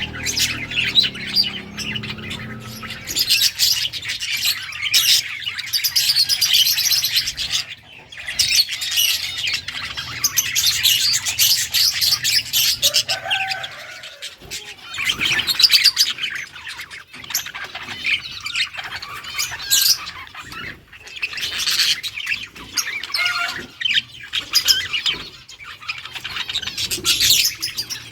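Budgerigars chirping and chattering in long warbling stretches with short pauses between them.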